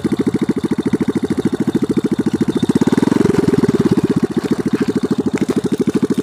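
Small motorcycle engine running at low speed under way, a steady rapid putter that picks up a little about three seconds in.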